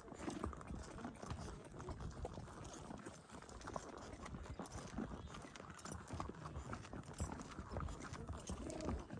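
Horse's hooves clip-clopping in a continuous, uneven run of clicks.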